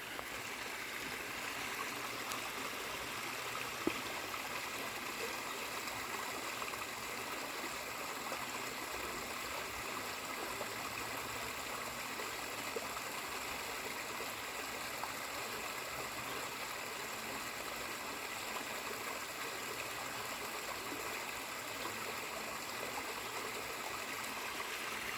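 Steady rush of a river flowing, unchanging throughout, with a couple of faint ticks.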